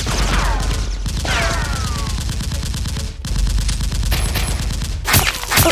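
Rapid automatic gunfire sound effects, a dense run of shots laid over a toy-blaster fight, with a few falling whines among the shots; the firing breaks off and restarts at edits.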